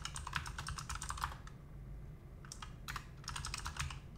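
Computer keyboard typing: a quick run of keystrokes, a pause of about a second, then a second short run and a few last keys near the end.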